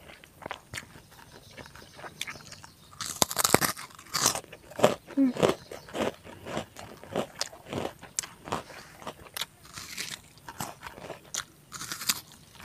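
Close-up eating sounds of a person chewing crispy fried eel in chilli sambal with rice: loud crunching bites about three seconds in and again near the end, with a steady run of wet chewing clicks between them.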